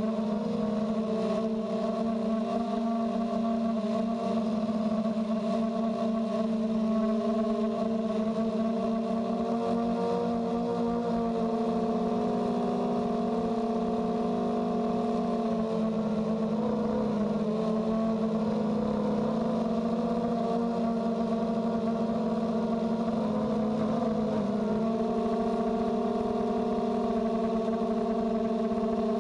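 Blade 200QX quadcopter's electric motors and propellers whirring steadily, heard close up from the GoPro carried on the copter, their pitch wavering and dipping for several seconds past the middle as the craft manoeuvres.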